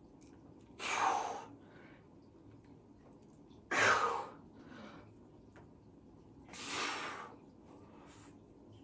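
A person breathing out forcefully in hard breaths, three of them about three seconds apart, as during a set of lifting.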